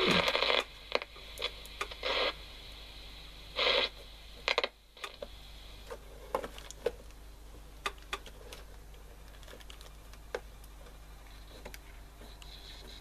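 A mid-1970s Falcon transistor radio switched on for its first test after repair, giving three short bursts of hiss and crackle from its speaker in the first four seconds. Scattered sharp clicks follow over a low steady hum.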